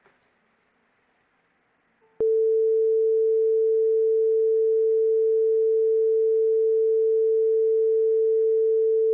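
Simulated buzzer of a PICSimLab PIC16F877A washing-machine simulation sounding one steady, pure mid-pitched tone that starts suddenly about two seconds in and holds: the alert that the wash program has finished and the clothes can be taken out.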